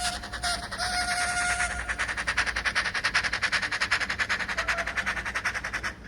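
Digital steam sound from a DCC sound-fitted OO9 Small England 0-4-0 model locomotive, played through its tiny onboard speaker. A steam whistle blows, breaks off, and blows again for about a second. Then come rapid, even exhaust chuffs, which stop abruptly near the end.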